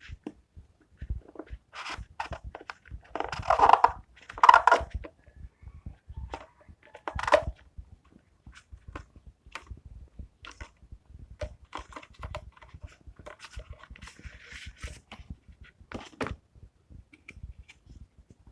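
Paper and card packaging being handled, crinkling, rustling and tearing, with many small clicks and taps. The loudest rustles come about three to five seconds in, with shorter ones near seven and sixteen seconds.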